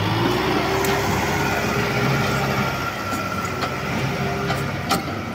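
Kubota tractor's diesel engine running steadily under load as it pulls a disc plough through wet soil, with a few sharp knocks, the loudest near the end.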